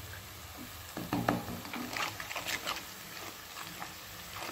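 A plastic spoon stirring chopped onions in oil in a kadhai: irregular scrapes and light knocks against the pan, starting about a second in.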